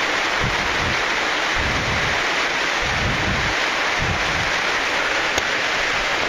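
Steady rush of falling water, as from a waterfall in the pothole, with irregular low buffeting on the microphone.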